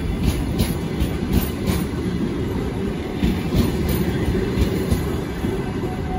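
Russian Railways passenger coaches rolling past as the train pulls out, a steady low rumble of wheels on rail with sharp clacks now and then.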